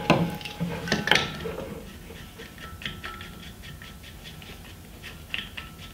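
Scuba regulator first stage being fitted onto a tank valve and screwed tight by hand: a couple of sharp metal clinks with a brief ring near the start and about a second in, then soft rapid ticking and rattling of metal parts and hoses as it is turned.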